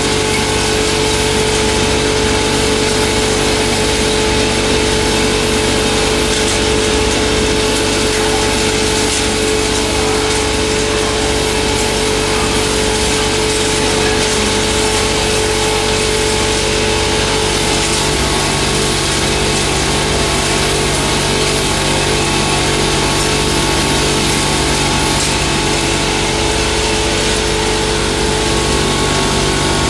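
Belt-driven turmeric pulverizer (hammer mill with blower) and its electric motor running at full speed while grinding dried turmeric fingers: a loud, unbroken rush of noise with a constant steady hum.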